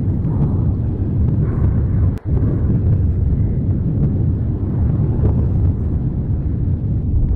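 Mount Etna's Voragine crater erupting: a continuous deep rumble, with a brief dropout about two seconds in.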